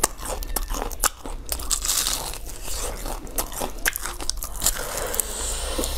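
Close-up crunching of crisp fried chicken being bitten and chewed, many sharp crunches in an irregular run.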